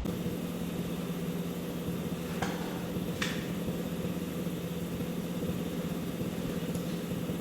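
Pump running steadily with a low hum while filling a tractor tire, with two short clicks a few seconds in.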